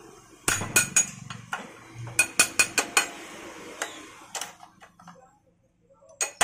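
A dozen or so sharp metal taps and clinks with a light ring as a steel rod knocks the gear shafts and gears of a Hero Splendor gearbox down into their seats in the aluminium crankcase. The taps come in quick runs over the first four seconds or so.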